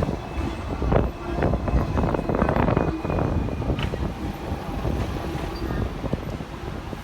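Hong Kong double-decker tram running along its street track: a steady rumble with frequent rattles and knocks from the car, and wind on the microphone.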